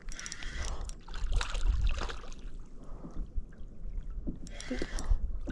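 Water splashing and sloshing around a small boat, in uneven bursts, over a low rumble of wind on the microphone.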